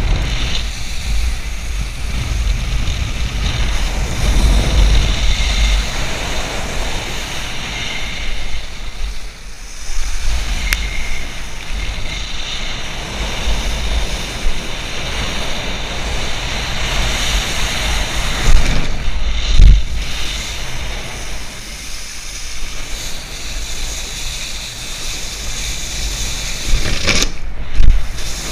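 Rushing wind buffeting the microphone of a body-mounted camera, with the hiss and splash of water spray off a wakeboard skimming the lake. There are a few louder thumps about two-thirds through and again near the end.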